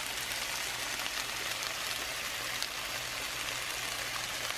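Snow peas and sliced mushrooms sizzling steadily in a frying pan as they sauté.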